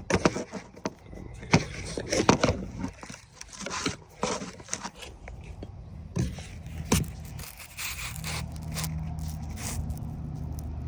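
Metal lock-picking tools clicking and scraping in a Ford lock cylinder as it is picked and tensioned, in irregular sharp ticks and scrapes. The clicking thins out after about seven seconds, and a low steady hum is left.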